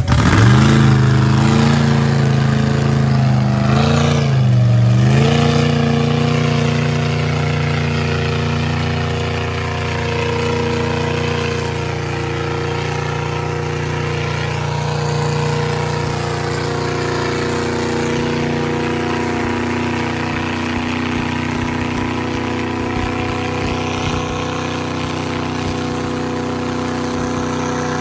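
Mega mud truck's engine running hard at steady revs as it pushes through deep mud on tractor-tread tires, with a brief drop and pick-up in revs about four seconds in.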